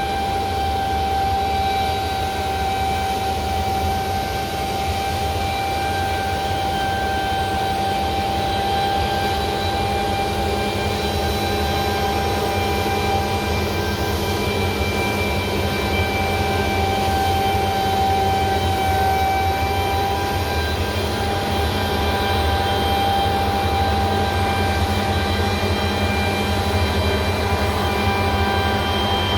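Claas Lexion 8900 TT combine harvester running steadily while cutting wheat: a constant machine drone with several steady high whines over a low rumble.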